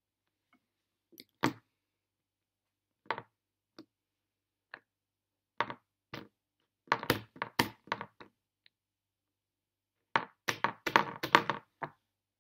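Scattered short knocks and clicks of a plastic caviar squeeze tube and its cap being handled and set down on a tabletop, growing into a quick run of taps and clicks near the end.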